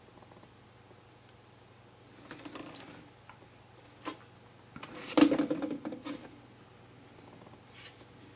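Handling noises of a plastic model railway coach body: light rubbing, a sharp click, then a louder clatter of plastic knocking on the track about five seconds in as it is picked up, over a faint steady hum.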